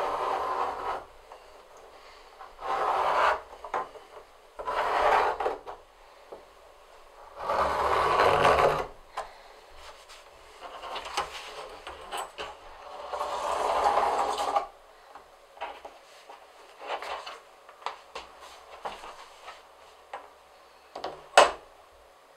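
A knife drawn through leather along a steel ruler, making about six rasping cutting strokes of roughly a second each, with a sharp tap near the end.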